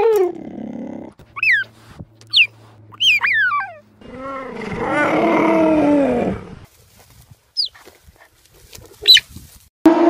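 Cheetah chirping: a few short, high, bird-like calls, each falling steeply in pitch, with a longer, lower call in the middle.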